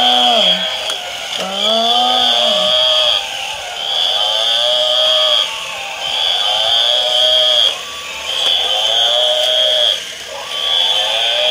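Battery-operated toy animals playing electronic sound effects through small speakers. A recorded bleat-like animal call repeats about every two seconds, each lasting around a second, over a high steady tone that switches on and off with the same rhythm.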